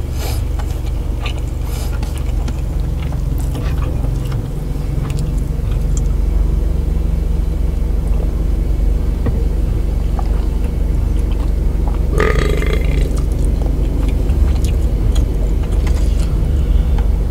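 Close-miked mukbang eating sounds: chewing, mouth clicks and smacks as rice is eaten by hand from a tray, over a steady low rumble from the car. One short throaty sound from the eater comes about twelve seconds in.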